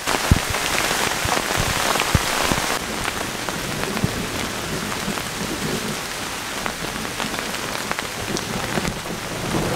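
Heavy rain pouring down steadily in a thunderstorm, with a few sharp taps in the first couple of seconds.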